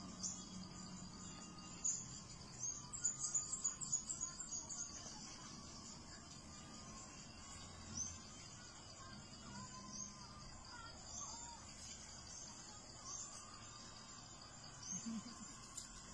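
Insects trilling steadily in the background, with birds chirping. A quick run of sharp high chirps comes from about two and a half to five seconds in, and single chirps follow now and then.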